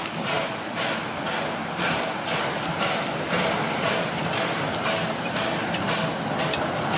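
Steam locomotive 1009 approaching and passing close by, its exhaust chuffing about twice a second over the steady noise of the running train.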